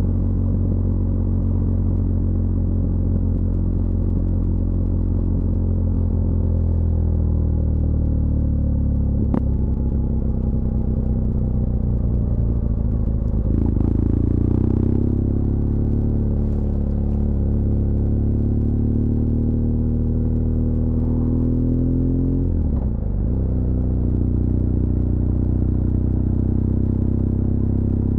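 BMW R1200GS LC Adventure's liquid-cooled boxer-twin engine running steadily while riding, its pitch drifting gently. There is a sharp click about nine seconds in, and a brief dip and recovery in engine pitch near the end.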